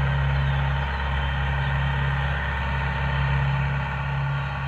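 Vehicle engine idling steadily, a constant low hum that does not change in pitch.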